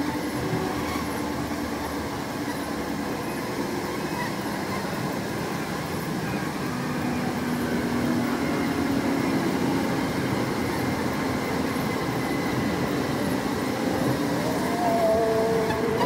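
Honey bee swarm buzzing: a steady hum of many bees flying close to the microphone, with single bees' lower drone passing by now and then.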